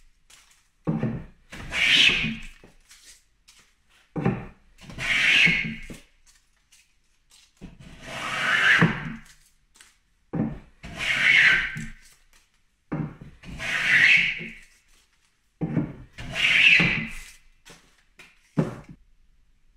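Wooden badger plane with a beech body planing along the edge of a board: six strokes about three seconds apart, each a knock as the plane is set down followed by a second-long swish of the blade slicing off a shaving. A last short knock comes near the end, with no cut.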